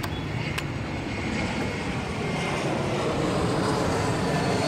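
Two sharp machete chops into a green coconut, about half a second apart, over a steady engine rumble that swells toward the end.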